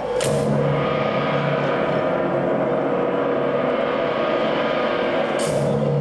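Performance backing track: a steady sustained drone struck twice by a crashing metallic hit like a gong or cymbal, once just after the start and again about five seconds later, each hit ringing out.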